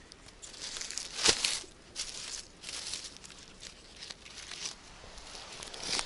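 Rustling and crinkling of dry pine needles and fallen leaves as a slippery jack mushroom is cut with a knife and pulled from the forest litter, with one sharp snap a little over a second in.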